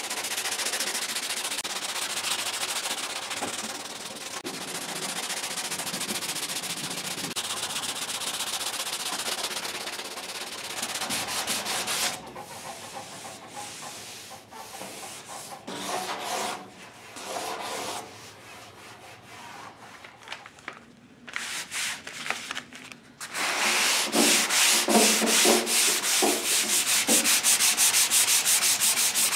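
Hand sanding of cured body filler on a steel fender with a long sanding block: rapid back-and-forth scraping strokes. The strokes run steadily at first, thin out to scattered, quieter strokes midway, and come back loud and fast near the end.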